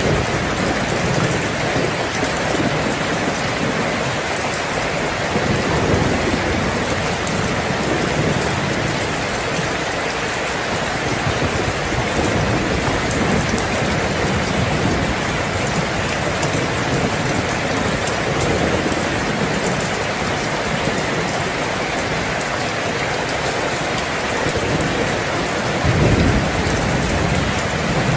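Heavy rain falling steadily, with low rolling thunder rumbling underneath. The thunder swells a few times and is loudest near the end.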